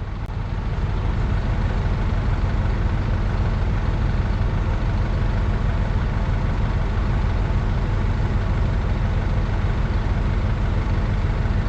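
A large engine idling steadily: an even, low drone.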